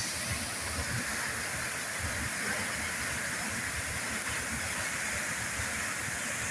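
Waterfall pouring into its pool: a steady, unbroken rushing hiss of falling water.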